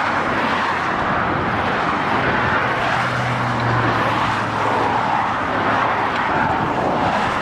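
Steady road noise of motor traffic, with a low engine hum that holds for a few seconds in the middle.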